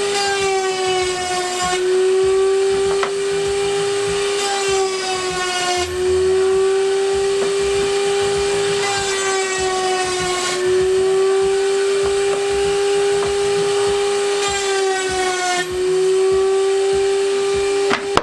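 Router in a router table running with a steady high whine. Its pitch sags slightly four times as OSB strips are fed past the bit, cutting slots for drawer dividers.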